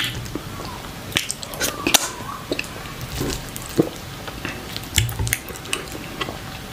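Close-miked eating by hand: wet, sticky squelches and clicks of fingers working fufu through thick okra pepper soup, with mouth and chewing sounds. The clicks are short and scattered, several a second.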